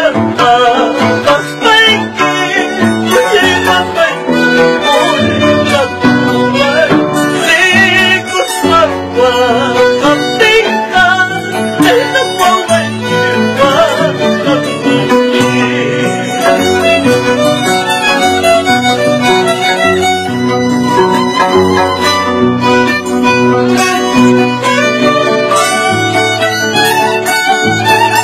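Instrumental Ayacucho-style Andean folk music: a violin carries the melody over strummed and plucked guitars and an Andean harp, played live at a steady dance rhythm.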